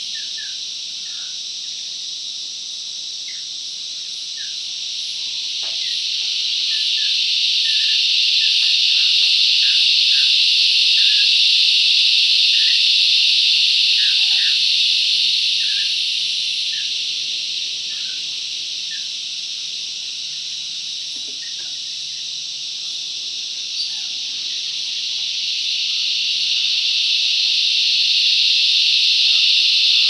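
A loud chorus of cicadas droning without a break. It swells to a peak about ten seconds in, dies back through the middle, and swells again near the end. Faint short chirps are scattered underneath.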